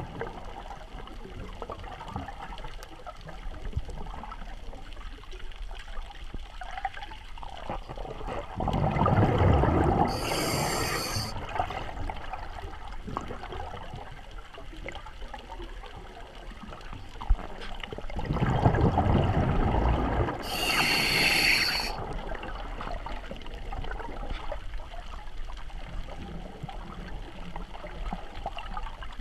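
Underwater breathing from a Spare Air mini scuba bottle, heard through a GoPro's waterproof housing. There are two breaths about ten seconds apart, each a deep rush of bubbles with a short, high hiss from the mouthpiece valve. Between the breaths there is a muffled wash of water.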